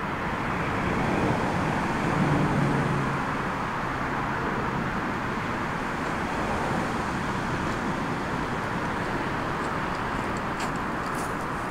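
Steady distant rushing jet-engine noise from a rear-engined regional jet on its landing, with a faint low hum that fades after the first few seconds.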